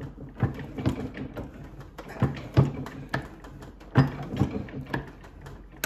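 A hand-lever ring stretcher being worked: a string of irregular sharp clicks and knocks as the lever is pulled down and a copper coin ring is forced further down the tapered mandrel and turned between strokes.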